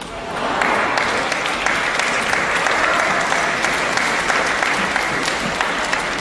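Crowd in an arena applauding a won point in a table tennis match. The clapping swells within the first half-second and then holds steady and loud.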